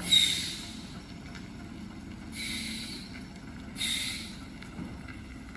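Lorry air brakes hissing in three short bursts, a loud one at the start and two softer ones about two and a half and four seconds in, over a diesel engine running low as the loaded truck creeps down a steep bend.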